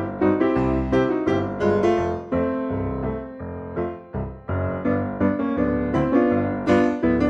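Background music: a piano playing a gentle melody of struck notes that ring and fade, several notes a second.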